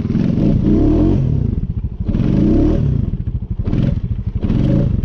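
Four-wheeler (ATV) engine running and revving up and down: two long revs, then two short blips near the end.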